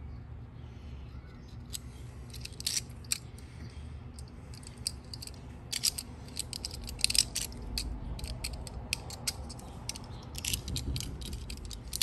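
Irregular metallic clicks and scrapes, some in quick clusters, from a barrel key being worked in an antique three-lever cabinet lock and the lock and keys being handled.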